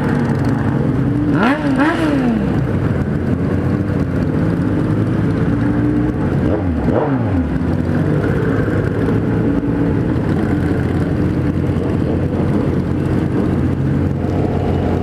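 Several motorcycle engines running together at low speed in a group ride, a steady engine hum. Engines rev up and drop back briefly twice, about a second and a half in and again about seven seconds in.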